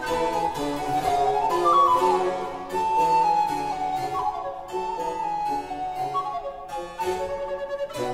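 Harpsichord playing a piece in several voices, a melody over bass notes, each note starting with a crisp pluck of the string.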